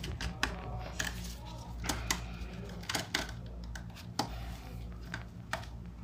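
Irregular light clicks and taps from hands working jumper wires into the terminals of contactors on a wiring board, over a steady low hum.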